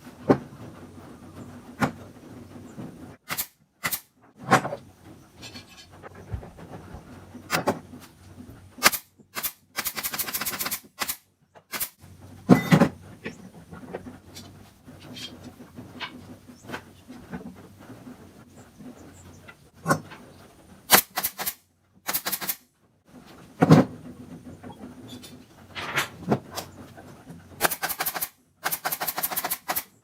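Irregular sharp clicks and knocks of hands and tools working on small parts, with a few short, rapid rattling runs about ten seconds in and near the end.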